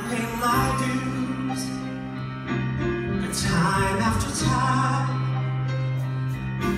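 A male singer performing a song live through a microphone, his sung phrases over held low chords from the backing band.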